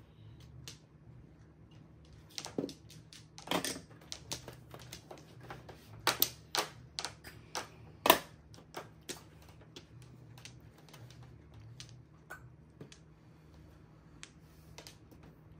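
Mahjong tiles clacking on the table as they are drawn, set down and discarded: a run of sharp, irregular clicks, busiest in the middle and thinning out later, over a faint low hum.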